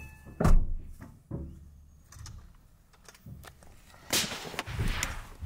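A single rifle shot, sharp and loud, with a fainter crack about a second later. A burst of rustling noise follows near the end.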